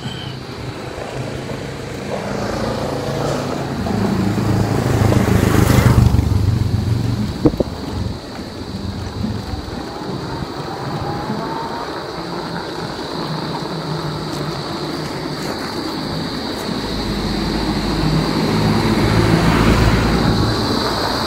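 Electric bike's 750-watt motor whirring as it pulls away and gathers speed on a concrete road, its whine rising in pitch, with tyre noise and wind buffeting the microphone.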